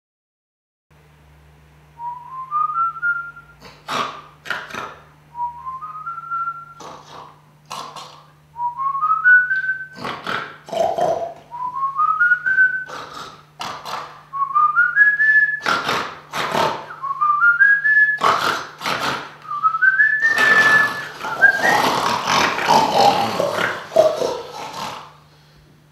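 Snoring snorts alternating with a short whistled phrase of four or five notes stepping upward, repeating about every three seconds. Near the end the snoring becomes a longer, denser stretch.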